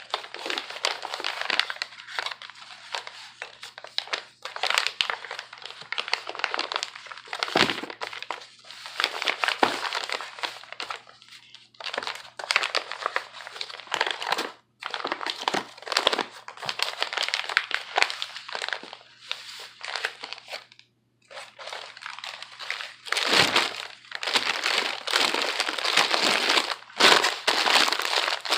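Sheets of packing paper crumpling and rustling as small items are wrapped, in bursts with short pauses. A couple of brief knocks, about 8 s in and again about 23 s in.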